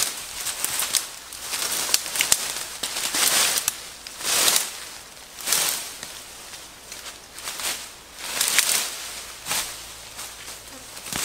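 Footsteps crunching through dry leaf litter and brushing past leafy undergrowth, a swell of rustling about once a second, with a few sharp snaps in the first couple of seconds.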